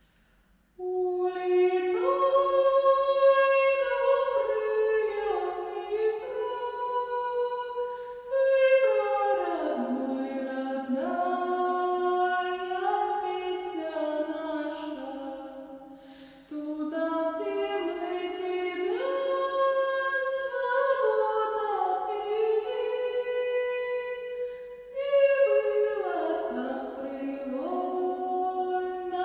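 A woman singing solo without accompaniment: a slow melody of long held notes, in phrases of about eight seconds with short breaks for breath between them.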